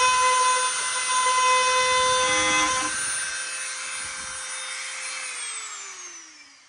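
Dremel rotary tool running at a steady high whine, its bit grinding out a crack in a plastic motorcycle fairing for the first few seconds. About five seconds in it is switched off, and the whine falls in pitch as the motor spins down and fades.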